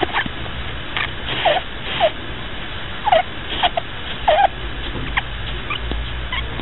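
Pet rabbit snoring: a string of about ten short, squeaky little sounds, each dropping in pitch, spaced irregularly over a steady hiss.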